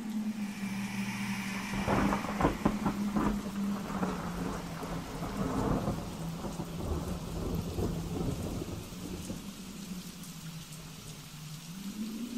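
Thunder with rain: a burst of cracking claps about two seconds in rolls away over the next several seconds, over a steady low hum.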